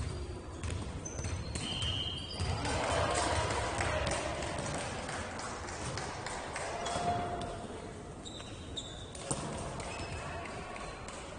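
Indoor ball game on a hard court: many short, high sneaker squeaks on the floor, with ball bounces and thuds and players calling out. The voices are loudest about three seconds in.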